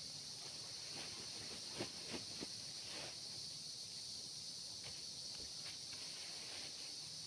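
Steady high-pitched drone of a forest insect chorus, crickets or cicadas, with three soft snaps or knocks close together about two seconds in.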